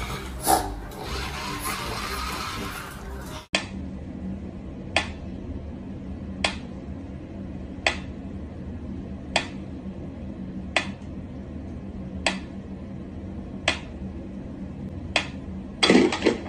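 A mechanical pyramid metronome ticking slowly, one sharp tick about every second and a half, over a steady low hum. Before it, a few seconds of busier mixed noise cut off abruptly, and near the end a few louder knocks break the rhythm.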